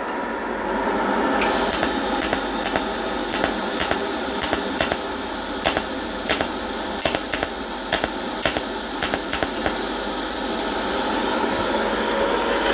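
TIG welder making a run of short tack spots at about 200 amps: a steady hiss starting about a second in, broken by sharp arc-strike clicks at uneven intervals as the spots are fired in a changing rhythm.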